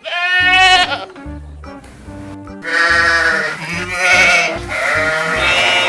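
Bleating livestock: one wavering call lasting under a second, then from about halfway in a run of several more wavering bleats, over background music with a steady beat.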